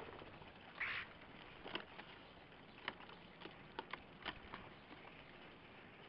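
Common starlings at a feeder: one short harsh rasping call about a second in, then a scattering of sharp clicks over a faint hiss.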